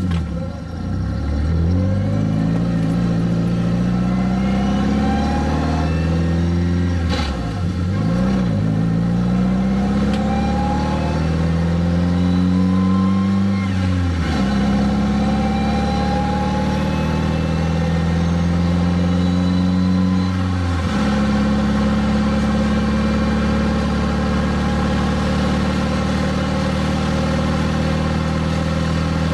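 Nissan D21 pickup's SR20DET turbo four-cylinder engine pulling away and accelerating through the gears of its manual gearbox. Engine speed climbs three times, dropping sharply at each upshift, about 7, 14 and 21 seconds in, then holds steady at cruising speed.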